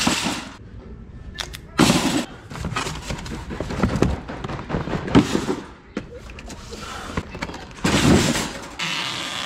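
Cardboard cases of duct tape being pulled off a metal shelf and dropped into a wire shopping cart: several heavy thuds with the cart rattling between them. Near the end it gives way to a steady hiss.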